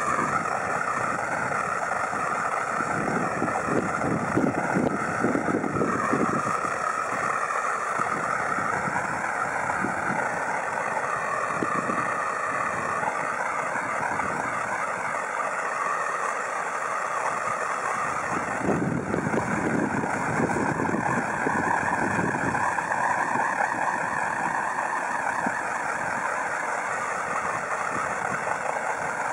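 Handheld propane torch burning with a steady hissing flame while it shrinks heat-shrink tubing over a wire splice. Wind buffets the microphone now and then, hardest about three to six seconds in and again around nineteen to twenty-one seconds.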